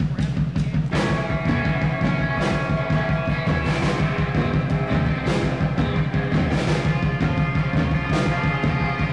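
A rock band playing live on stage: drum kit and bass guitar, joined about a second in by electric guitars playing sustained chords, with repeated cymbal crashes.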